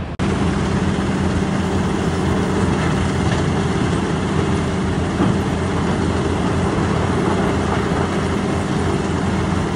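Stockpiling conveyor running, with crushed rock pouring steadily off the end of the belt onto a pile over a constant machinery hum.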